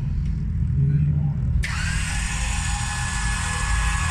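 A high-pitched mechanical whine, like a small power tool, starts abruptly about a second and a half in and runs steadily for about three seconds, over a continuous low rumble.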